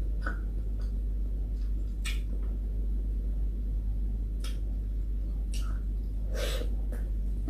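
Close-up eating sounds: about half a dozen short clicks and smacks from picking apart fried fish with the fingers and chewing it, over a steady low hum.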